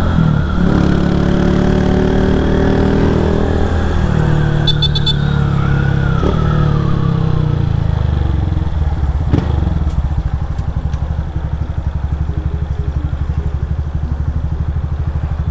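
Motorcycle with an aftermarket GRS exhaust, heard from on the bike: the engine pitch climbs as it pulls away, then it eases off and settles into an even, pulsing idle at a stop for the last few seconds. A short run of high beeps comes about five seconds in.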